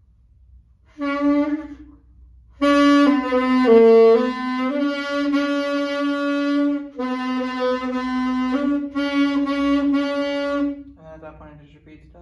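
A beginner playing a saxophone. A first short note breaks off after under a second, then a run of sustained low notes steps down and back up, with one brief break in the middle.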